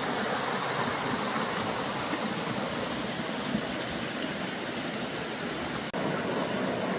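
Steady rushing water, an even full-range hiss, cut off abruptly about six seconds in and replaced by a duller, lower rushing noise.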